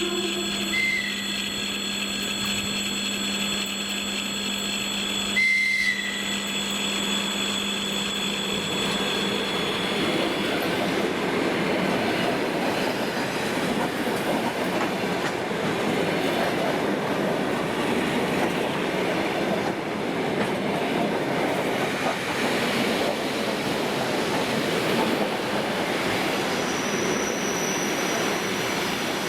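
ED4M electric multiple unit arriving at a station. At first there is a steady hum and high whine, with a sharp knock about five seconds in. After about ten seconds the rolling noise of wheels on the rails rises as the cars come past, and a thin high wheel squeal starts near the end.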